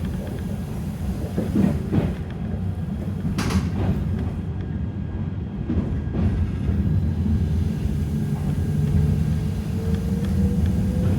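Toyama Chiho Railway 10030 series electric train running, heard from inside the car: a steady low rumble with a few sharp clacks as the wheels pass rail joints. From about two-thirds of the way in, a motor whine rises slowly in pitch as the train picks up speed.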